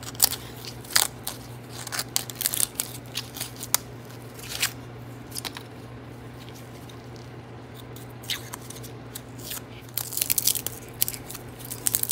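Brittle old paper insulation being peeled and torn off a loudspeaker field coil's cardboard bobbin: dry, irregular crackling and tearing, thickest a couple of seconds in and again near the end, over a steady low hum.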